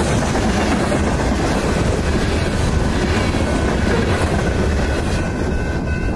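Freight train cars rolling past a grade crossing, wheels clattering on the rails, the noise thinning out about five seconds in as the last car clears. A steady crossing-signal bell tone rings underneath.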